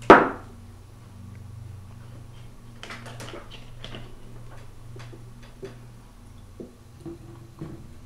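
A plastic water bottle set down hard on a table with one loud knock, followed by quiet handling sounds: a few faint clicks as the cap is unscrewed and light knocks on the table, over a low steady hum.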